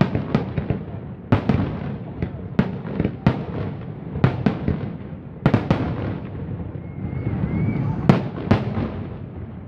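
Aerial firework shells bursting overhead in a rapid, irregular series of sharp bangs, more than a dozen, with a short lull shortly before the last two loud bursts near the end.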